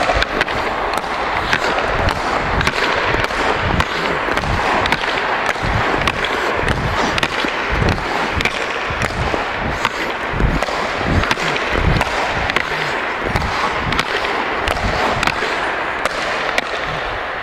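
A hockey puck cracking on and off stick blades in rapid one-touch passes back and forth, a sharp clack every half second or so, over the steady scrape of skate blades on the ice.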